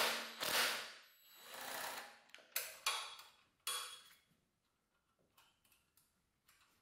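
Cordless drill running in two short bursts to back out bolts on a small engine, followed by three sharp metal clinks from a wrench on the bolts and a few faint clicks.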